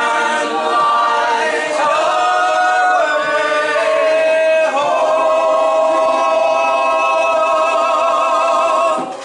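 Unaccompanied group singing, several voices together, moving through a few notes and then holding one long final chord that stops near the end.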